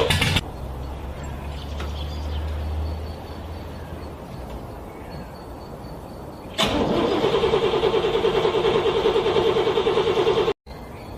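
A car's starter cranking a cold engine in fast, even pulses for about four seconds, starting about two-thirds of the way in and cutting off abruptly. It comes after a few seconds of quieter low rumble.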